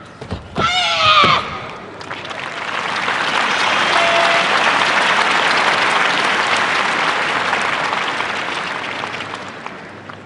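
A sharp shout from a karateka (a kiai), falling in pitch, about half a second in, then a large arena crowd applauding, swelling for a few seconds and fading away near the end.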